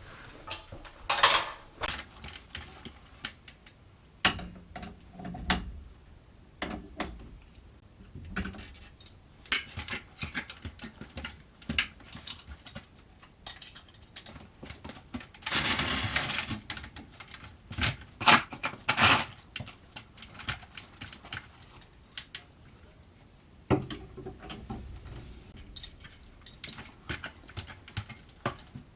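Metallic clinks and knocks of steel winding bars worked in a garage door torsion spring's winding cone, as turns are taken out of the spring to ease its tension. The knocks are irregular, with a scraping stretch of about a second near the middle.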